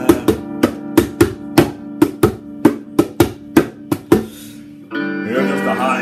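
A quick, uneven run of drum hits, roughly three to four a second, over a steady held chord from the backing music. The hits stop about four seconds in, and the full band music comes back in just before the end.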